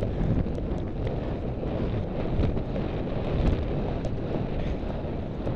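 Wind buffeting a helmet-mounted camera microphone as the horse is ridden at speed across open ground, a steady low rumble with faint scattered ticks above it.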